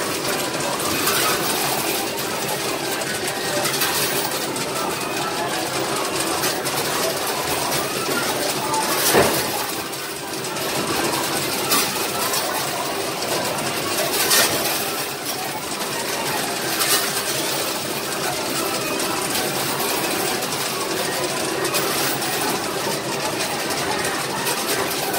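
Coin pusher arcade machine running: a steady mechanical whir with sharp clicks and coin clinks every few seconds, the loudest about nine seconds in, over a busy arcade din.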